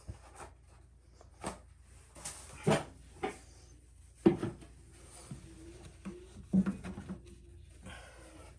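Scattered knocks and clunks as the washer's drain pump filter is handled, about half a dozen over several seconds, the loudest about four seconds in and another near six and a half seconds.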